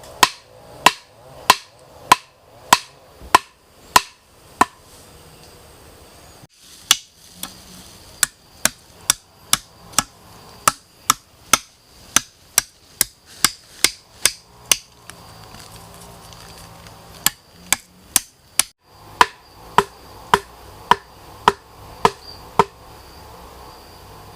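Repeated sharp strikes of a tool on wood, about two a second, in three runs with short pauses between them: wood being chopped or hammered while building a shelter.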